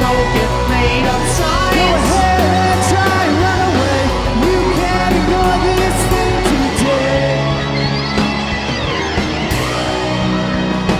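A rock band playing live: drums, bass and electric guitar, with a sung melody over it whose notes slide up and down.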